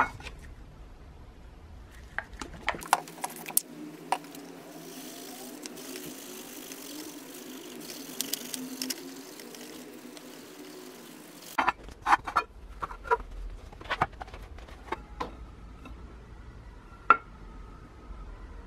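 A paper towel rubbing metal polish over the chrome-plated shell of an antique electric iron, a steady scrubbing through the middle stretch, with scattered sharp clicks and knocks of the metal shell being handled on the wooden bench.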